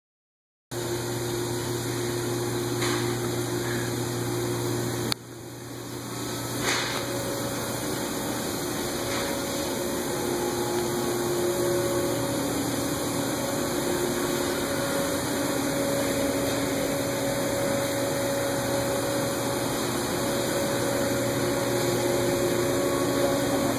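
Steady drone of running industrial machinery: a pump-like hum with several held tones over an even noise. The level drops suddenly about five seconds in and climbs back over the following few seconds.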